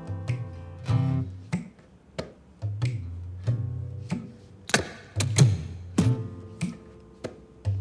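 Malay frame drum and tabla played by hand in a slow, steady rhythm: sharp slaps alternate with deep pitched bass strokes that ring for up to a second, a few of them bending in pitch.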